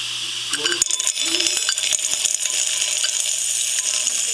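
An opened Seagate Barracuda 7200.7 hard drive spins with a steady high whine. About a second in, dry dog kibble starts landing on the spinning platter and sets off a dense clatter of clicks as the pieces are knocked about and flung off.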